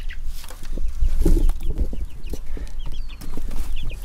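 Young chickens peeping in short, repeated chirps, over rustling of plastic netting and chicken wire and dull knocks and bumps as a person crawls into the wooden run. The bumping is loudest about a second in.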